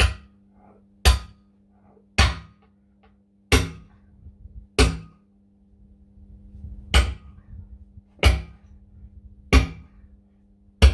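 About nine heavy sledgehammer blows on a tractor's rear wheel, roughly one every second or so with a longer pause midway, knocking the tyre loose from the steel rim to change it.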